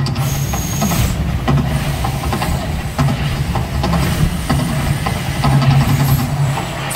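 Deep, loud rumbling of the Mirage volcano eruption show, swelling in low pulses, with sudden whooshing bursts as gas flame jets fire.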